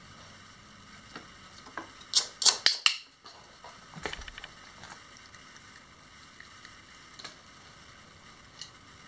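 A quick run of sharp plastic clicks and clatter, loudest about two to three seconds in, as a dog works at a plastic treat-dispensing toy, followed by a smaller group of clicks and a few faint ticks.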